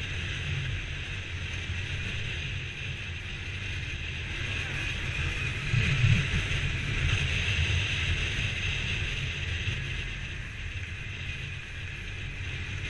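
Motorcycle engine running at low speed, with wind noise on the microphone and a brief louder swell about six seconds in.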